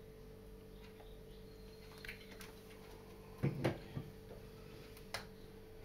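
A few soft knocks and clicks of kitchen items being handled on a stone countertop, the loudest a short cluster of low knocks about three and a half seconds in, over a steady low hum.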